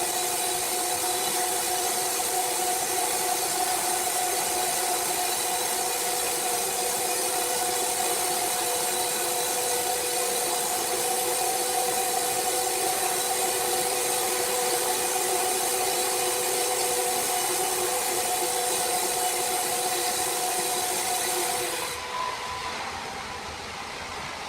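Sawmill saw cutting through wood: a steady whine with hiss that cuts off abruptly about 22 seconds in, leaving a quieter machine hum.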